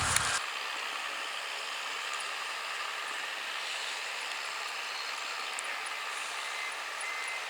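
A music bed cuts off just after the start, leaving a steady, even hiss of outdoor background noise.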